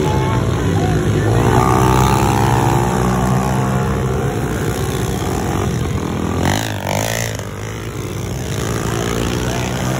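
Several pit bikes racing past on a dirt track, their small engines revving up and down over one another. The engines are loudest about two seconds in, and one engine's pitch swoops sharply about seven seconds in.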